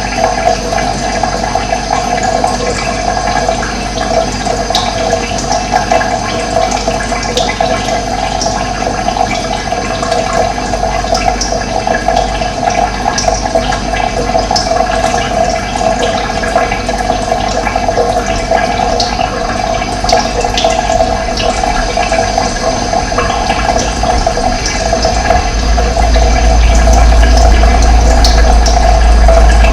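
Running water rushing steadily, with a low rumble that grows louder about 25 seconds in.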